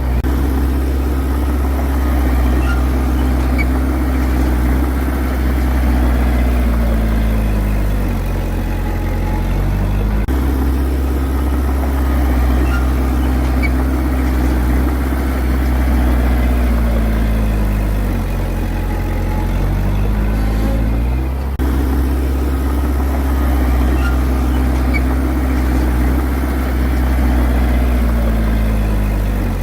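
Heavy diesel engine of an earthmoving machine running steadily. Its pitch sags and climbs back again several times, and the sound changes abruptly about 10 and 21 seconds in.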